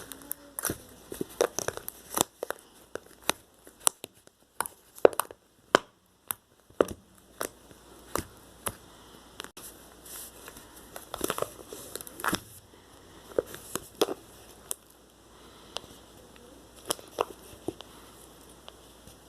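Slime being squeezed and poked by hand, giving irregular crackling and popping clicks, sometimes single, sometimes in quick clusters, growing sparser near the end.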